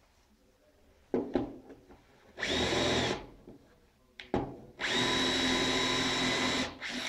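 Cordless drill-driver run against a wooden chair frame in two bursts: a short one about two and a half seconds in and a longer one of about two seconds near the end, each with a steady high whine. A few knocks of the tool on the wood come before each run.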